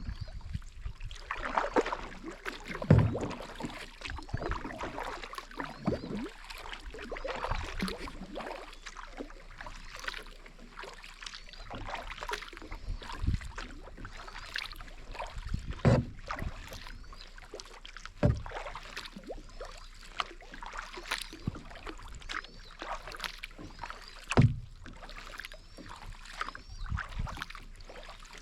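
Kayak paddling: the paddle dips and splashes in the water with steady watery sloshing. A few sharp knocks stand out, the loudest about 3, 16, 18 and 24 seconds in.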